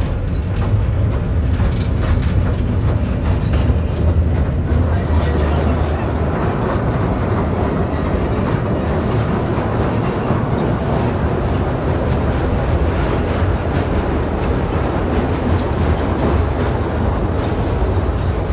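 Amusement-park sky train running along its elevated track, heard from inside the open-sided carriage: a steady low rumble.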